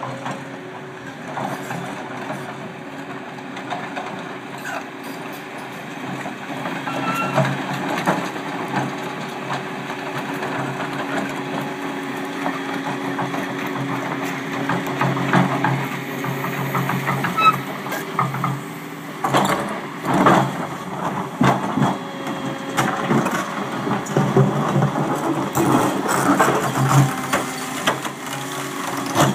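Volvo 35-tonne tracked excavator's diesel engine running under load as the machine works its boom and bucket, with scattered clanks and knocks of steel. A loud cluster of knocks comes about two-thirds of the way in. Near the end, activity grows louder as the bucket pushes against the 55-tonne boulder.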